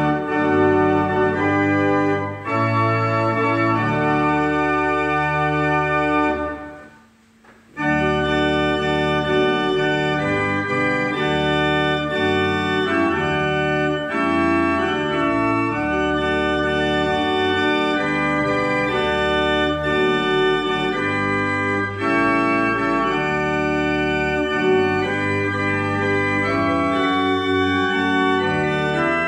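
Organ playing a hymn tune in sustained chords. It breaks off briefly about seven seconds in, between verses, and then starts the next verse.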